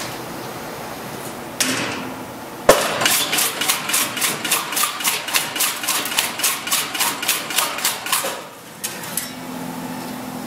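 Blade-type bone-in meat portioning machine slicing a bone-in beef loin into steaks: a hard knock as the cycle starts, then about five seconds of rapid, evenly spaced chopping strokes, roughly four a second, before it stops.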